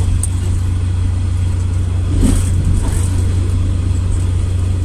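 Steady low rumble of a moving vehicle, heard from inside it.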